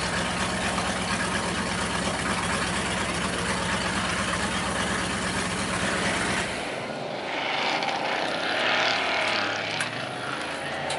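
Dirt-track stock-car engines running at racing speed, heard at a distance as a steady drone. About two-thirds of the way through, the low rumble cuts off abruptly and a higher, wavering engine note carries on.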